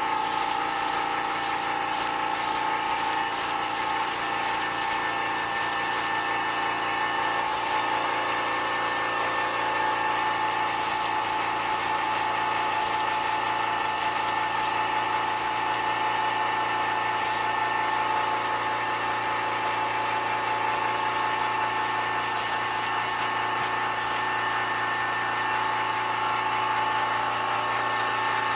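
Small airbrush air compressor's motor running steadily, with groups of short hisses as the airbrush sprays a light base coat of silver paint.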